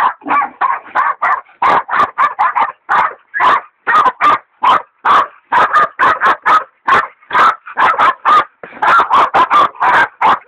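Hog dogs baying a bayed-up wild sow hog: continuous rapid barking, about three barks a second.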